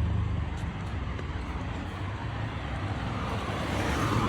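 Road traffic rumble from passing vehicles, a steady low drone that is loudest at the start. Near the end a cat's meow begins.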